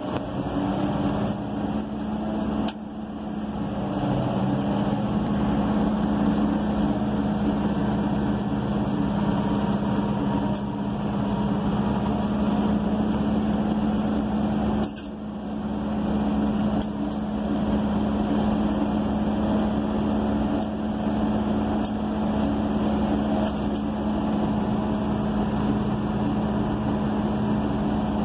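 Caterpillar motor grader's diesel engine running steadily as the machine grades a dirt fill layer, heard from inside the cab. The level dips briefly twice, about 3 seconds in and near the middle.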